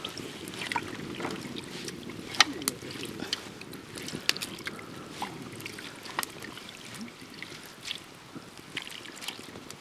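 Rice noodles being stirred with chopsticks in an aluminium pot of boiling water over a wood fire: a steady low bubbling with scattered sharp clicks and taps, the loudest about two and a half seconds in.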